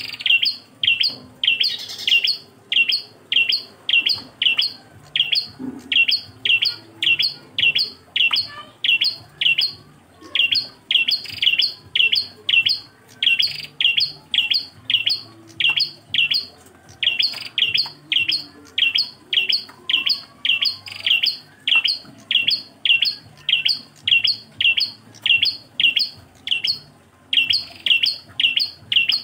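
Prenjak klawu singing its single-voiced ("engkel") song: a steady run of short, high notes, each sweeping downward, about two to three a second, with a brief pause near the end.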